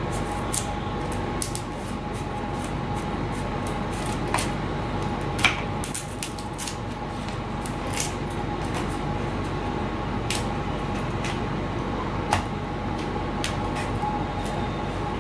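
Hobby knife cutting a small slot in a foam wing for a servo wire: scattered light clicks and scrapes, a louder click about five and a half seconds in and another near twelve seconds, over a steady hum with a faint tone.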